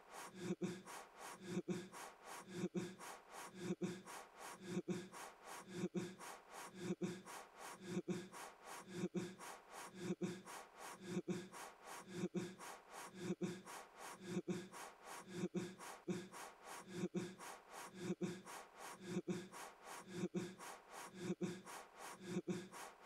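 A person blowing hard at a birthday candle: a short puff of breath repeated very evenly, about once a second.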